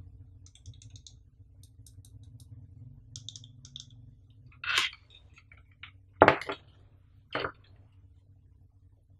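Faint small plastic clicks from an in-ear earphone being handled, then three louder knocks and rustles as the earphones and their cable are laid onto the cardboard packaging, the loudest about six seconds in. A steady low hum runs underneath.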